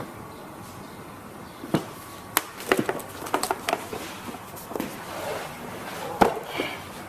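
Irregular sharp knocks and clatter from hand work on metal, about a dozen strikes with the loudest near the end, over a faint steady background.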